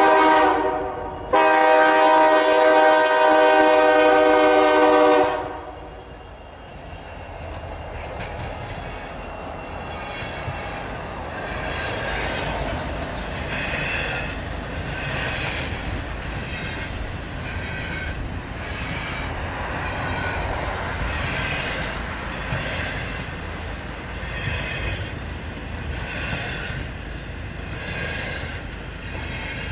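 Freight locomotive air horn sounding a short blast and then a long blast of about four seconds. The manifest freight train's cars then roll past with a steady rumble and a rhythmic clatter of wheels over the rail joints.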